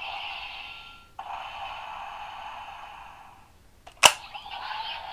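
Electronic sound effects from a Bandai DX Dice Saber toy sword, played through its small built-in speaker in two long stretches with a short break about a second in. About four seconds in comes one sharp, loud click, followed by another burst of the toy's effects.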